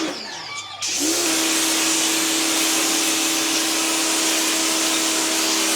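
Buy Global W6 electric pressure washer starting to spray: about a second in the trigger is pulled and a loud, steady hiss of the water jet starts. A steady hum from the pump motor comes up just after it as the unit starts on demand.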